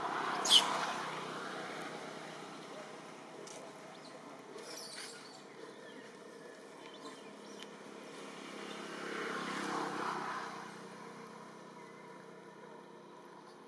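A motor vehicle passing by twice, each pass swelling and fading over a couple of seconds, the second about nine seconds in. A brief sharp high sound about half a second in.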